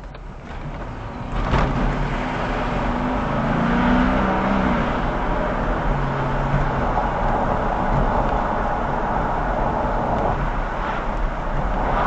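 Go-kart's small engine running, coming up to a steady noise about a second and a half in, with its pitch rising a little a few seconds later.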